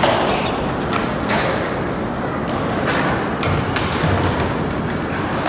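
Several sharp knocks and clacks of skateboards hitting concrete, over a steady rushing noise.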